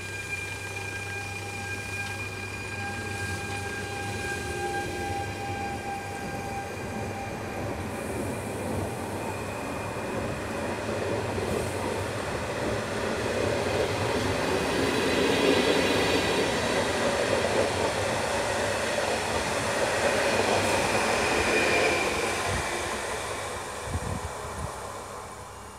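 PKP Intercity Stadler FLIRT electric multiple unit (ED160) rolling past close by. A steady whine carries through the first eight seconds or so, then wheel and rail noise builds and is loudest while the carriages pass, fading near the end.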